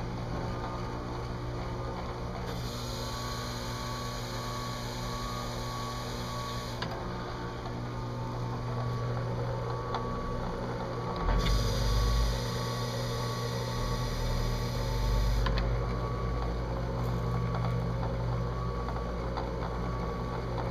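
Drill press running with a steady hum while an abrasive pad in its chuck engine-turns a metal dash insert. Twice, for about four seconds each, the pad is pressed onto the plate and a hissing grind joins the hum, about two seconds in and again around eleven seconds.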